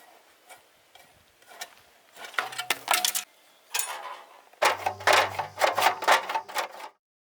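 Metal tools clinking and knocking against motorcycle parts in irregular strikes, sparse at first and then a quick busy run of clinks with a low hum under it in the last few seconds before it cuts off.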